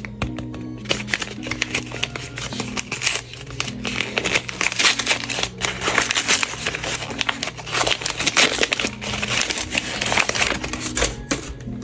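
Sheets of white paper crinkling, crumpling and tearing as a handmade paper blind bag is ripped open by hand, in many quick irregular rustles, over soft background music.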